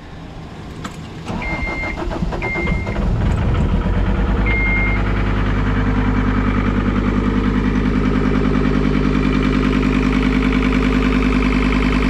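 John Deere 326D skid steer's diesel engine, freshly repaired after a broken crankshaft, cranked and started about a second in. It catches and settles into a steady idle, with three short warning beeps while it starts.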